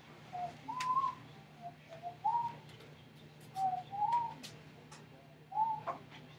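Whistling: about six short, clear notes, each rising and falling in pitch, spread over a few seconds, with a few faint clicks between them.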